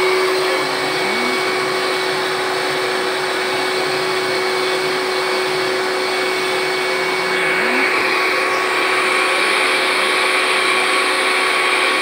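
Canister wet-and-dry vacuum cleaner running steadily with a constant hum and whine, a little louder from about seven seconds in.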